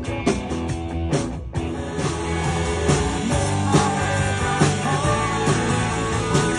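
Rock band music with guitar and drums playing a stretch without singing.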